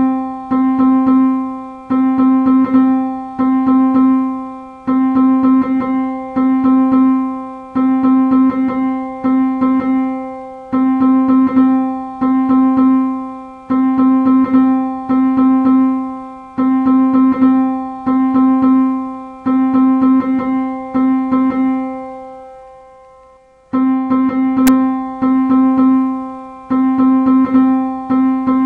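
A single piano-like note, always at the same pitch, played over and over by a Python script through pygame's sound.play() calls inside a neural network's forward pass. Each play marks a step of the computation. The note is struck in quick uneven runs, and each strike decays. About 22 seconds in it is left to die away, and it starts again about a second and a half later.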